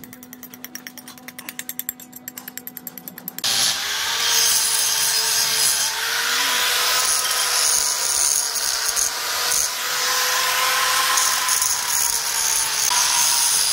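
Electric angle grinder grinding down a weld on a steel truck driveshaft flange. It starts suddenly about three seconds in and runs loud and steady, its pitch wavering slightly as it bears on the metal. Before it starts there is a quick run of light scraping strokes on the metal.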